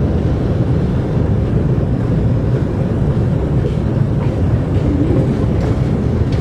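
Underground metro station escalator running, heard while riding it down: a steady low rumble.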